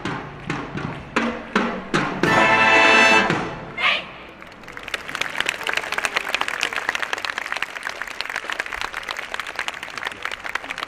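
A marching band's brass and percussion end the piece with several short accented chords and a long held chord, closing on a final hit about four seconds in. Then the crowd applauds steadily.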